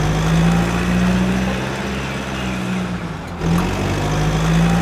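A motor vehicle engine running steadily with a low hum, swelling slightly about three and a half seconds in.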